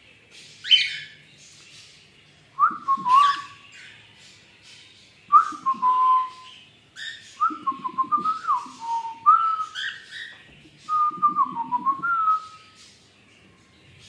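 Cockatiel singing: a series of whistled phrases of short, gliding, warbling notes, in about five bursts with brief pauses between them. The first phrase is a single higher, quick sweep.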